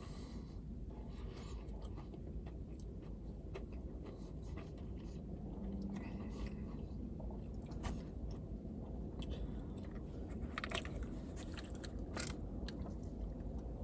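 A person biting into and chewing a Popeyes fried chicken sandwich, with short, scattered crunches of the crisp breading.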